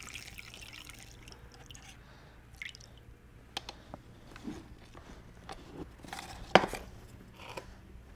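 Homemade vinegar-and-iron-filings wood stain trickling through a paper filter into a jar, then dripping, with scattered small clicks and one sharper knock about two-thirds of the way through.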